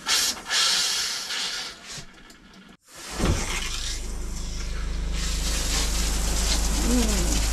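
RV bathroom faucet hissing as pink antifreeze is drawn through the lines, then, after a sudden break, the RV water pump humming steadily under the hiss of the shower head spraying, which grows louder a couple of seconds later.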